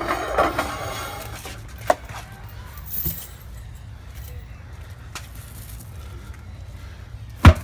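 A 300 lb tractor tire being flipped and falling flat onto concrete: one loud, heavy thud near the end, after a few lighter knocks. A voice is heard briefly at the start.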